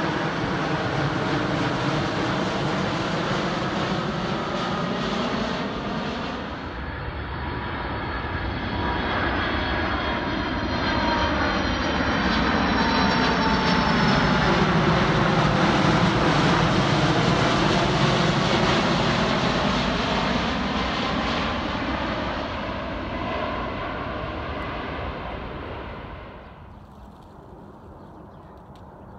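Jet airliners passing low overhead on landing approach with gear down: first a Boeing 767 freighter's twin engines, then, after a cut, a four-engined Boeing 747 freighter, which grows loudest as it passes overhead while its engine whine sweeps down in pitch. Near the end the sound drops suddenly to a much fainter, distant jet.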